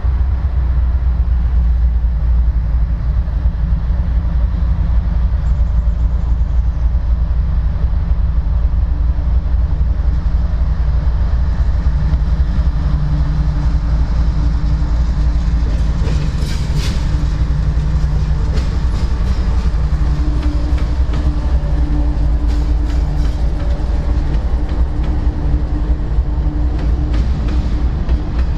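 CSX freight train rolling past at track side: a loud steady low rumble of the cars, with wheels clattering over the rail from about halfway through.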